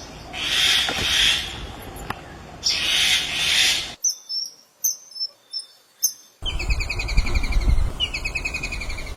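Birds calling, in changing clips: two hissy, high buzzing bursts, then a few short high chirps, and from about two thirds of the way in a fast trill of rapidly repeated notes over a low rumble.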